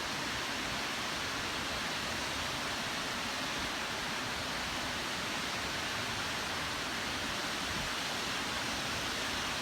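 Steady, even hiss of noise, like static, unchanging in level throughout.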